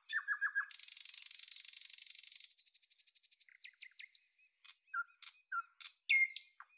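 A small songbird singing a varied song: a quick run of four notes, then a buzzy trill lasting about two seconds that ends in a downward slur, then a rapid ticking trill and scattered chirps and whistles, with two sharp calls dropping in pitch near the end.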